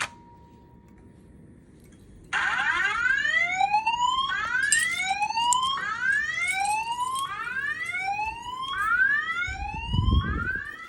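Wheelock E60 fire alarm speaker sounding a slow whoop tone: a rising sweep repeated about every one and a half seconds, starting about two seconds in. There is a low thump near the end.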